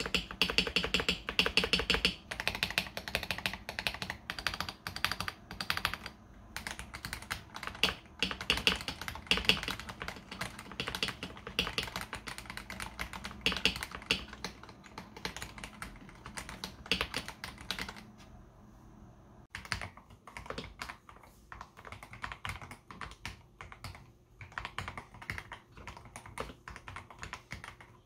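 Fast typing on a KBD67 Lite R3 mechanical keyboard fitted with Akko CS Jelly White switches, run stock, under ASA low-profile keycaps. About two-thirds of the way in there is a brief pause, then typing resumes on the same switches lubed, with quieter clicks.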